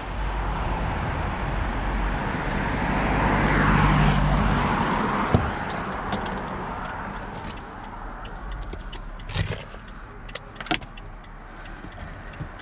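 Street traffic: a car passing, growing louder to a peak about four seconds in, then fading. A sharp click follows, then scattered light clicks and clinks in the second half.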